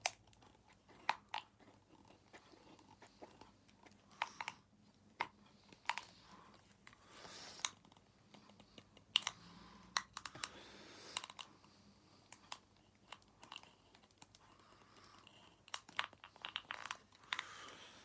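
Quiet, irregular small plastic clicks and short scraping rustles from a hand-held correction tape roller being pressed and drawn over paper and handled while it is tested after a makeshift repair.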